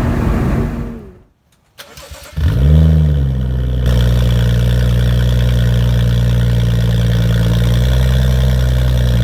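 BMW M235i's turbocharged 3.0-litre inline-six running straight-piped, with no exhaust from the downpipe back, heard from inside the cabin while driving; it fades out about a second in. After a brief silence the engine starts up with a quick rev flare, then settles into a steady idle.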